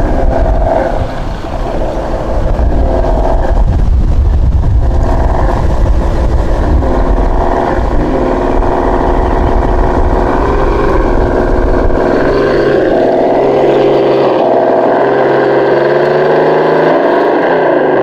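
Tamiya Toyota Tundra High-Lift RC truck's electric motor and gearbox whining as it drives over dirt and stones, the pitch shifting up and down with the throttle. Heavy wind rumble on the microphone through the first two-thirds, which then drops away.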